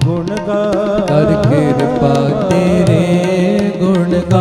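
Sikh kirtan: harmoniums and tabla playing, with a singer drawing out an ornamented line that bends up and down in pitch over the held harmonium chords and steady tabla strokes.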